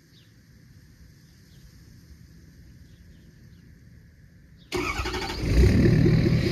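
Ford 6.7 Powerstroke V8 turbo-diesel, emissions deleted and running through a 4-inch exhaust, starting about four and a half seconds in: a brief crank, then it catches and settles into a loud idle with an even, rapid pulse.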